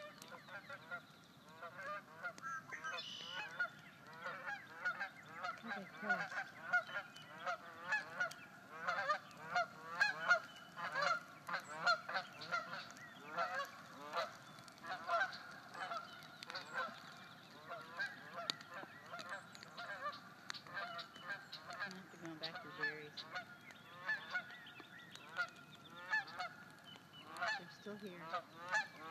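A pair of Canada geese honking in flight as they pass overhead, a steady run of short honks about one or two a second.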